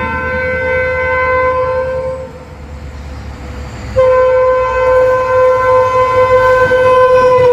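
WDP-4 diesel locomotive's horn sounding two long blasts, the first cut off about two seconds in and the second starting about a second and a half later. The second blast dips slightly in pitch at the very end as the locomotive passes at speed, over the low rumble of the passing train.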